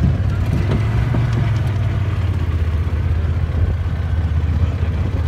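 Engine running steadily with an even, low hum.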